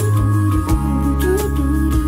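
Background pop song in a gap between sung lines, with a steady beat, held bass notes and a wavering melody line.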